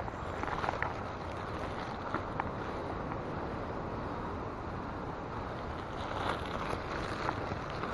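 Steady rush of a rocky hill stream flowing, with a few faint ticks.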